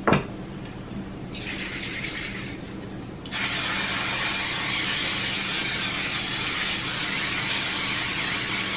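Aerosol nonstick cooking spray hissing into a glass baking dish. After a knock at the start there is a short, fainter spray about a second in, then one long, steady spray from about three seconds in.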